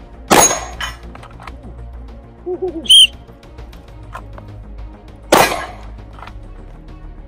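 A single handgun shot, then a short whistle blast about three seconds in, followed about two and a half seconds later by another single handgun shot: the whistle is the start signal for each draw and one shot.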